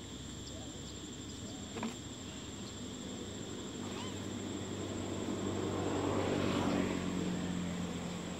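Steady high-pitched insect drone, with a motor vehicle passing: its hum swells about five seconds in, peaks, and fades near the end. A single sharp click near two seconds in.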